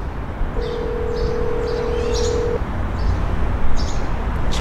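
A mobile phone on speaker plays a single two-second ringback tone, the steady North American ring of an outgoing call waiting to be answered. Small birds chirp repeatedly throughout, over a low rumble.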